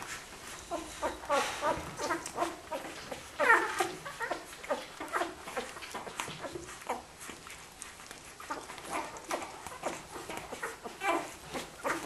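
One-week-old Australian Kelpie puppies squeaking and whimpering while they nurse: many short, high calls that rise and fall, the loudest about three and a half seconds in, amid many small clicks.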